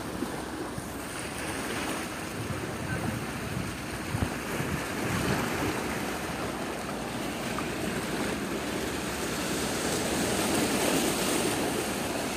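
Small waves washing against the rocks at the foot of a seawall, with wind blowing over the microphone.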